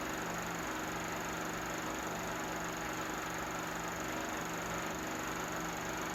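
Steady hiss with a low, even hum under it, unchanging throughout and without any distinct event: the noise of an old film transfer or a running projector rather than any sound from the filmed scene.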